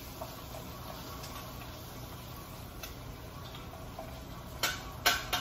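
Cooking utensils clinking against a metal stock pot over a steady low background noise, with a few light ticks, then several sharp clacks in quick succession near the end.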